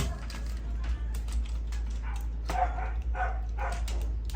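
A dog barking and yipping four or five times in quick succession in the second half, over scattered small clicks and a steady low hum.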